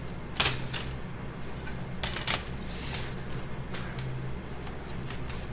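A CD case and its paper booklet being handled: scattered sharp clicks of the plastic case with light papery rustling, likely as the booklet is taken out.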